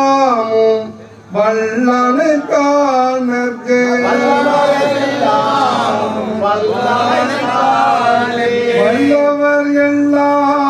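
Group of men chanting a devotional song in unison, with long held notes in phrases. Around the middle, many voices join and overlap less evenly.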